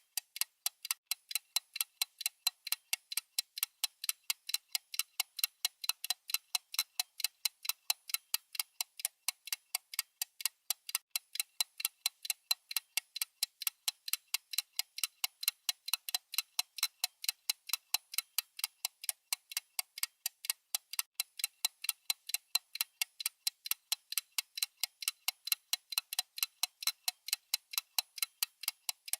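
Mechanical watch ticking with a fast, even beat of several sharp, high ticks a second, the balance running steadily.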